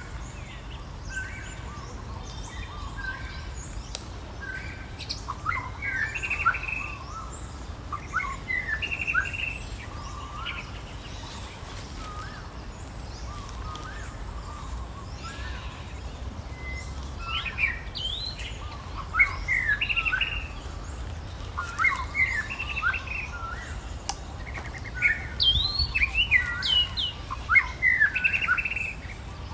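Birds chirping: many short, quick calls in scattered clusters, coming thicker in the second half, over a low steady rumble.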